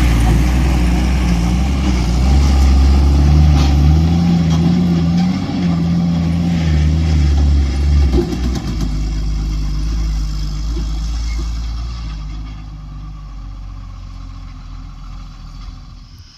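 Heavy diesel engine running loud, its pitch rising and falling, then easing off about eight seconds in and fading steadily over the last few seconds.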